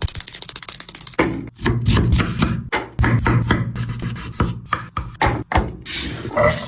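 A quick run of knocks and scraping strokes, cut into short pieces with abrupt breaks between them.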